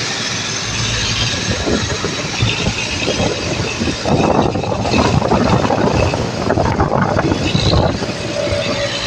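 Road vehicle noise from moving traffic: a steady engine and road rush with rough buffeting that gets louder and rougher from about four seconds in to about eight. No horn is sounding.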